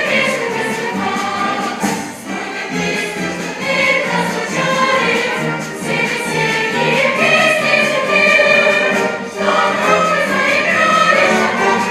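Choral music: a choir singing sustained, slowly moving lines.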